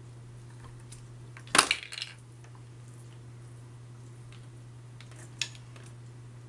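A sharp clatter of small hard objects being handled comes about one and a half seconds in, with a few smaller clicks after it, then a single light click near the end.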